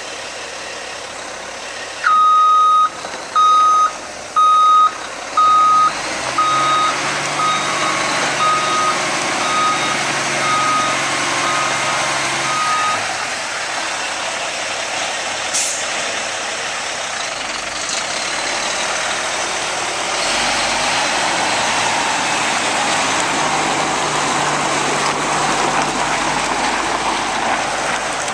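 Truck backup alarm beeping steadily, about one and a half beeps a second, for roughly eleven seconds over the running of a Kenworth T800 concrete mixer truck's Cat C-10 diesel engine. About halfway through there is one brief sharp hiss.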